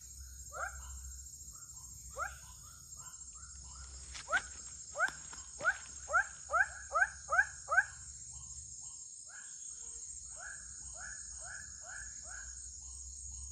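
White-breasted waterhen (ruak-ruak) calling: a run of short rising croaks about two a second, quickening and growing loud in the middle, then a softer run near the end. A steady high insect drone runs underneath.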